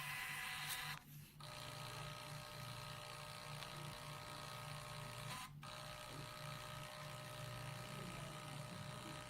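The hematology analyzer's built-in printer running as it prints a report with graphs, a faint steady low buzz that pulses evenly.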